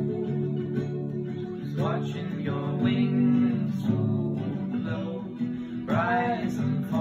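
Acoustic guitar music, strummed and plucked.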